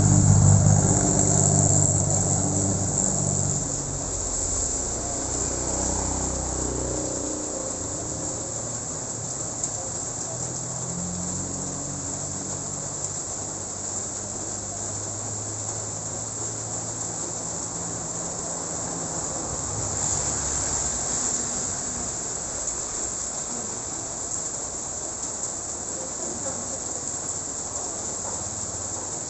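A small pickup truck's engine fades away as it drives off over the first few seconds. After that a steady high insect trill, like crickets, fills the sound, over the faint hiss of light rain on a wet road, with a low engine hum faintly in the middle.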